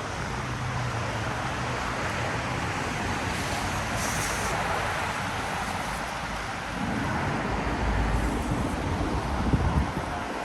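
Road traffic hissing on a wet street. A vehicle's low engine rumble builds from about seven seconds in and is loudest near the end as it passes.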